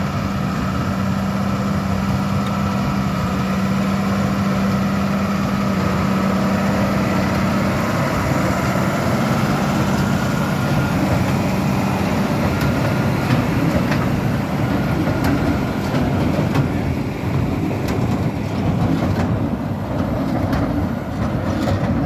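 Tractor engine and KRONE BigPack 1290 HDP XC high-density large square baler running while baling straw windrows: a loud, steady mechanical drone with a low hum that fades about halfway through, and scattered knocks in the second half.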